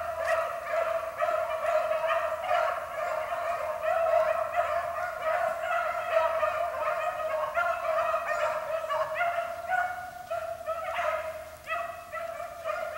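A pack of rabbit hounds baying together in full cry, many voices overlapping continuously as they run a rabbit's trail.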